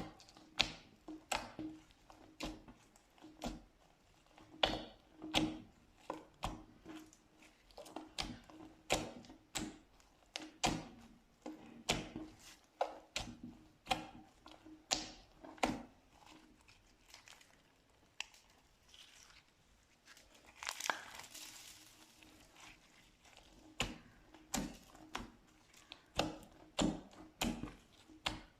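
Slime being squeezed and worked by hand, giving a run of short, sharp pops and crackles, roughly two a second, with one longer crinkling stretch past the middle.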